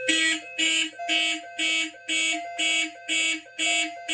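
Simplex fire alarm notification appliances sounding an evacuation signal in even, high-pitched pulses about twice a second, set off by a heat detector going into alarm.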